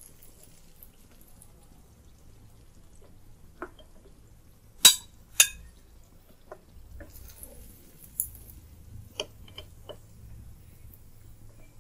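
Spatula clicking and scraping against a frying pan and a plate as fried dhuska are lifted out of hot oil, over a faint sizzle of the oil. Two sharp clinks about five seconds in are the loudest.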